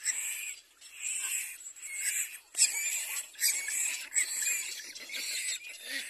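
Little black cormorant nestlings giving repeated harsh begging calls at the nest, each burst lasting half a second to a second with short breaks between.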